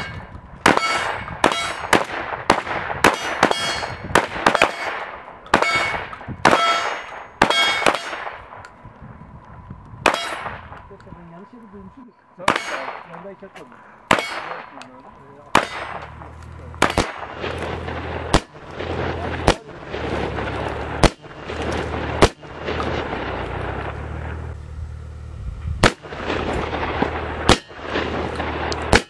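Gunfire from several shooters at once with handguns and rifles. Rapid, overlapping shots with a ringing tail come for the first eight seconds. After that, single shots come about every second and a half, with a longer gap near the end and a low steady rumble under them.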